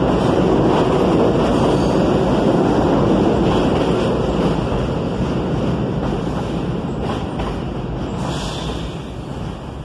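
NYC Subway R46 train running along an elevated station platform, a steady rumble of wheels on rail and running gear that gradually gets quieter over the second half.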